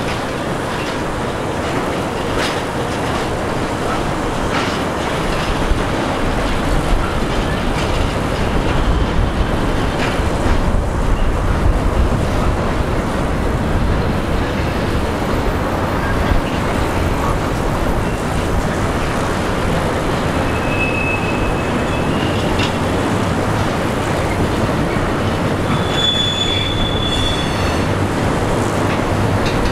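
Container freight train rolling past at steady speed, wheels running on the rails, with two brief high-pitched squeals in the second half.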